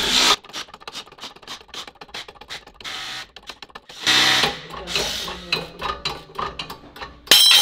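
Irregular light metallic clicks and taps from work on a wheel hub and bearing, then a sudden loud metallic clatter with a ringing note near the end.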